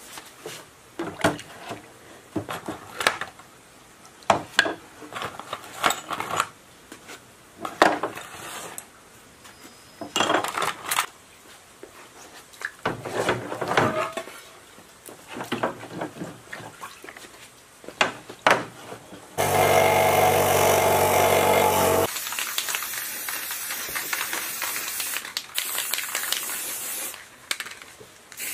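Metal lathe parts clinking and knocking against each other and splashing as they are scrubbed and rinsed in a plastic tub of water. About twenty seconds in comes a loud rushing hiss lasting a couple of seconds, then a steadier hiss of an aerosol spray can painting the parts.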